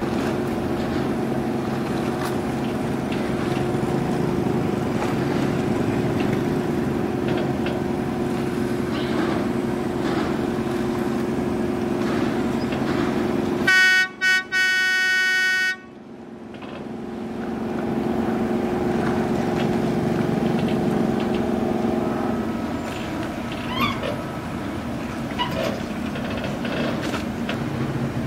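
Steady low drone of a boat's diesel engine running close by. About halfway through, a loud high-pitched horn sounds two short toots and then a longer blast, about two seconds in all, after which the drone gradually returns and eases off near the end.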